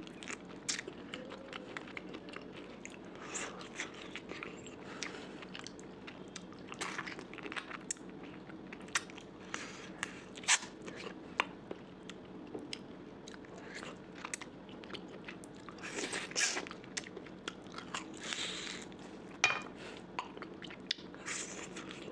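A person chewing and biting curry and rice close to the microphone, with irregular wet smacks, clicks and crunches.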